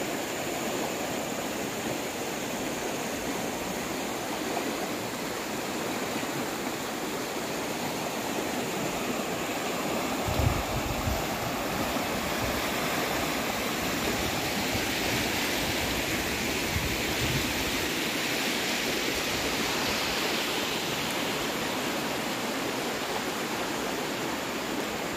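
A swollen, fast-flowing muddy river rushing steadily over shallows, with a couple of brief low thuds about ten seconds in.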